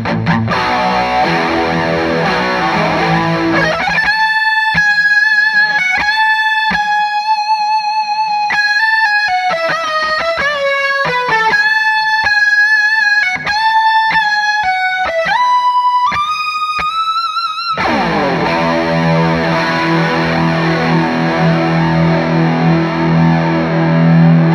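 Electric guitar played through an EarthQuaker Devices Aurelius tri-voice chorus pedal. It plays chords first, then a single-note melody from about four seconds in with a slight waver on the notes. A full chord is held and rings out from about eighteen seconds in.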